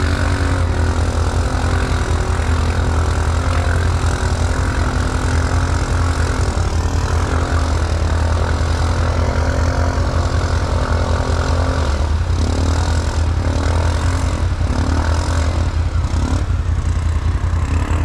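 Can-Am Outlander 1000 ATV's V-twin engine running steadily at low revs, its pitch shifting slightly in the second half.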